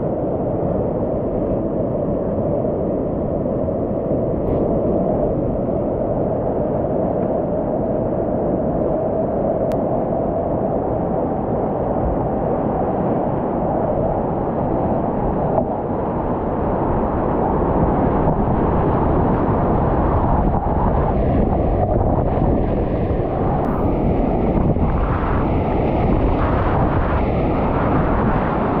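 Whitewater rapids rushing and churning around a kayak running through them, a steady loud roar heard muffled through a GoPro camera.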